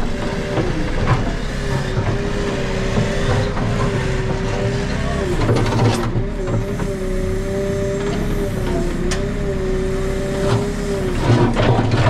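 Backhoe loader's diesel engine running steadily, with a whine that wavers slightly in pitch over a low rumble and a few knocks.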